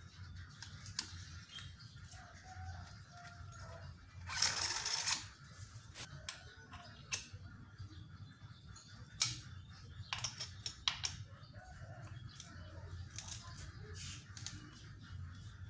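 Small metallic clicks and ticks of a hex key turning in the saddle clamp bolt of a bicycle seatpost. A louder rasping scrape lasts about a second, about four seconds in.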